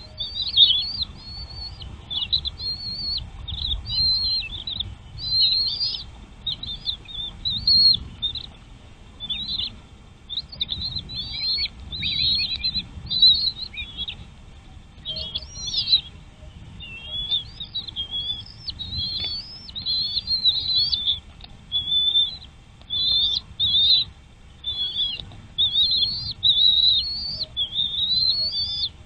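Small birds chirping in a rapid, near-continuous run of short high-pitched notes and quick up-and-down glides.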